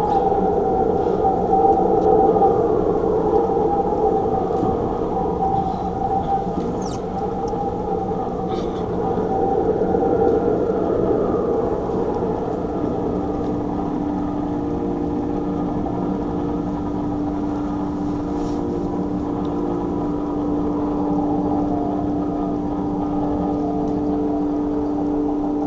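Droning ambient soundscape of sustained, wavering tones, which settle into lower, steady held notes about halfway through, with a few faint clicks.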